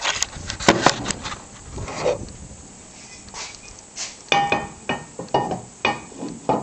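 Handling noise from a camera being set down on a workbench among tools: sharp knocks and clicks in the first second, quieter rubbing and scraping, then a quicker run of clicks and knocks in the last couple of seconds.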